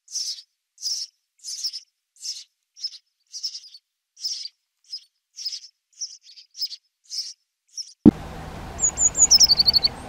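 House sparrows chirping, a short chirp roughly every half second for about eight seconds. Then, after a click, a faint background hiss sets in and another bird gives a quick run of high notes stepping down in pitch.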